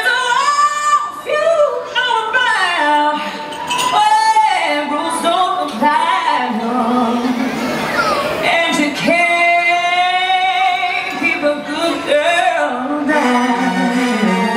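Dance music led by a high solo singing voice, with sliding, wavering notes and long held tones. About thirteen seconds in, a low pulsing beat comes in under the voice.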